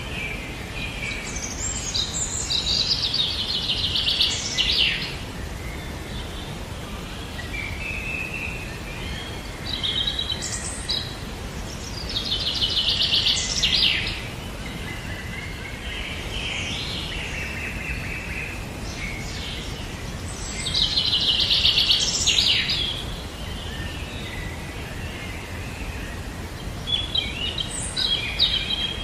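Bird song: a trilled, rattling phrase repeated about every nine seconds, with shorter chirps between phrases, over a steady background noise.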